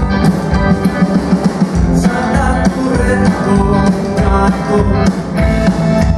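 Live rock band playing: electric guitars, upright bass and drums.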